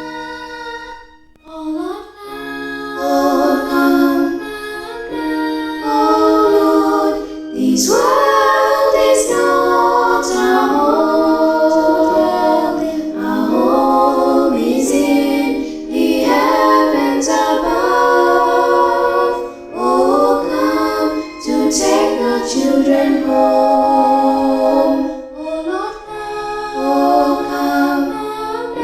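Vocal group singing a gospel song a cappella, several voices in harmony, after a brief pause about a second and a half in.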